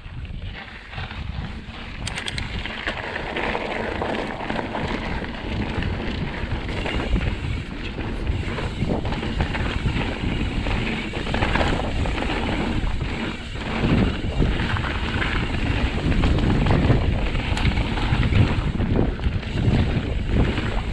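Wind rushing over a chest-mounted GoPro's microphone as a mountain bike rolls fast down dry, dusty dirt trail, with tyre noise on the dirt and the bike rattling over bumps. The noise grows louder over the second half.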